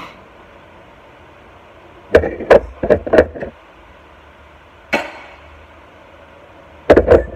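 Loud knocks and clatters from metal outboard water-pump parts being handled and set down. A quick run of about five comes about two seconds in, a single knock in the middle, and a close pair near the end.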